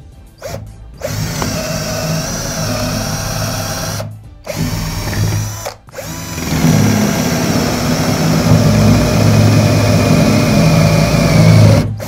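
Makita DF347DWE 14.4 V cordless driver drill running and boring into a wooden block, its motor whining steadily under load. It runs in several stretches with brief stops about four and six seconds in. The longer, louder last stretch is a large wood-boring bit cutting through the block and throwing up shavings.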